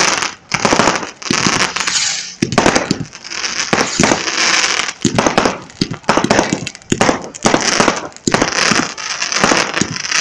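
Aerial fireworks bursting in a rapid, irregular run of bangs, several a second, with crackling and hissing between them.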